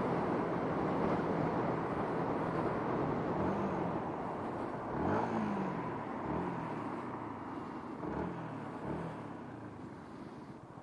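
A motorcycle on the move: heavy wind and road rush on the camera's microphone, with the engine pitch climbing and dropping several times. The rush fades off near the end as the bike slows.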